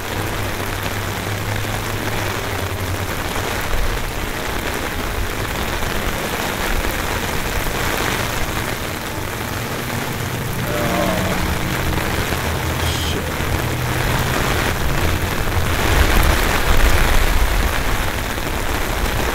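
Heavy rain falling steadily from an approaching hurricane, with gusts of wind rumbling on the microphone, strongest about three-quarters of the way through.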